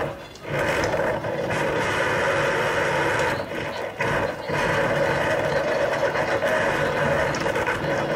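Live experimental noise music: a dense, steady, machine-like noise made by performers working objects on a table, with short dips a fraction of a second in and again around three and a half and four seconds.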